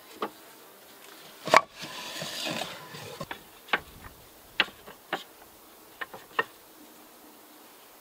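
Wooden Langstroth frames knocking and scraping against each other and the hive box as they are slid along a horizontal hive, with honeybees buzzing around. The loudest knock comes about a second and a half in, followed by a second of scraping, then several lighter knocks.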